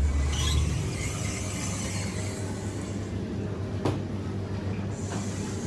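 Steady low rumble and hiss of a moving vehicle, with a single sharp click about four seconds in.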